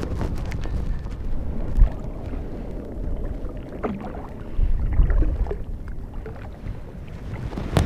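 Wind buffeting the microphone over water lapping against a small fishing boat, with a few short knocks from the rod and reel being handled, one about two seconds in and one near the end.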